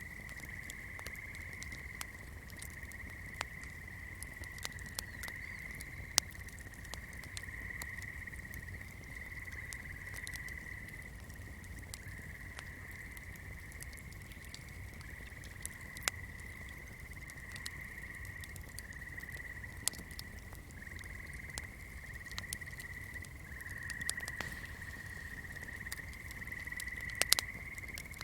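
Steady swamp chorus of frogs or insects, a continuous high trill held near one pitch, with irregular sharp pops and crackles from a burning candle.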